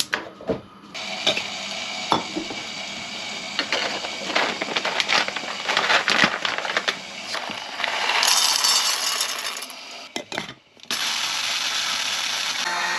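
Kitchen clatter: dishes and utensils clinking and knocking, with a louder hiss for a second or so about eight seconds in. A steady noise takes over about eleven seconds in.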